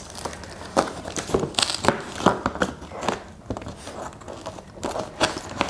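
Scissors slitting the packing tape along the seam of a cardboard box: a run of short, irregular snips and crackles of tape and cardboard.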